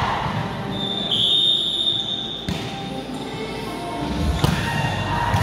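Ball thuds echoing in a large indoor hall, with a high steady tone held for about a second and a half and a sharp knock near the end.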